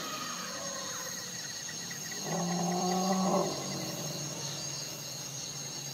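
Asian elephant giving one drawn-out, pitched call lasting about a second, starting a little after two seconds in. A steady high drone of insects runs underneath.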